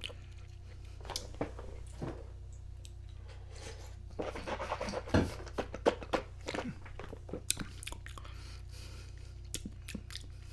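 Close-up mouth and breath sounds from one person: scattered wet clicks and smacks, with a run of short, harsh breathy bursts through the middle, the loudest stretch, after a deep minty inhale. A faint steady electrical hum runs underneath.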